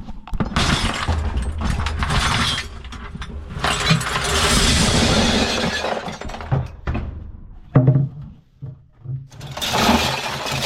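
Scrap metal clattering and rattling as it is handled and shifted, in three long stretches of dense clinks and knocks, with one sharp knock a little before the eighth second.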